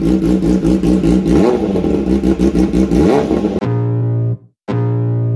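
Kawasaki Ninja ZX-10R's inline-four engine revving through an SC Project exhaust, its pitch rising and falling in repeated blips. It cuts off sharply about three and a half seconds in, followed by two short held electronic music notes.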